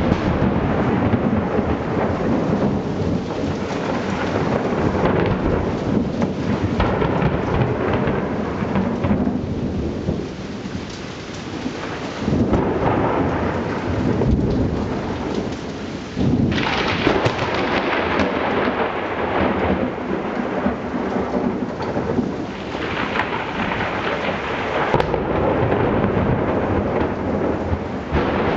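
Thunder rumbling in long, overlapping rolls over the steady hiss of rain, with sudden louder crashes about twelve and sixteen seconds in.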